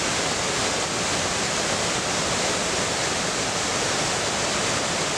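Waterfall cascading over rocks, a steady, even rush of falling water with no change in level.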